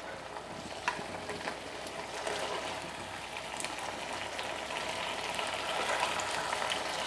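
Saucy fried cauliflower sizzling in a hot non-stick wok while a steel spoon scrapes through it and clicks against the pan, scooping it out onto a plate.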